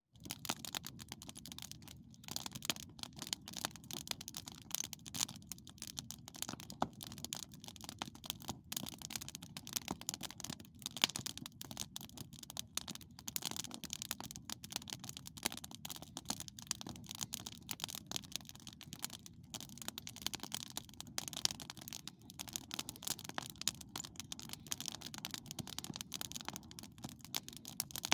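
Cedar-wood campfire crackling, with dense, irregular pops and snaps throughout.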